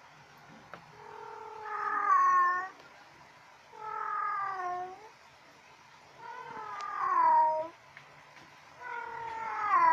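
A cat meowing four times, long drawn-out calls about two and a half seconds apart, each dropping in pitch at the end.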